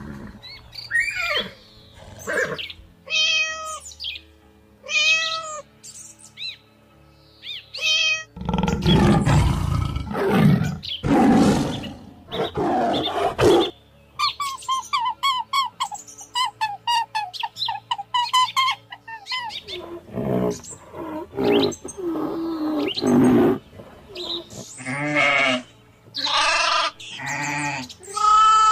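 A run of different animal calls one after another: short high pitched cries, then a stretch of loud harsh roaring calls, then fast repeated chattering calls, and more pitched calls near the end.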